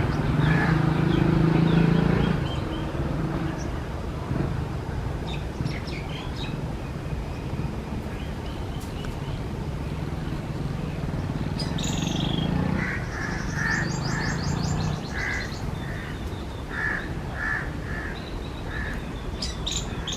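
Crows cawing, a run of about ten short calls in the second half, with small birds chirping over steady outdoor background noise. A passing vehicle's engine fades out in the first two seconds.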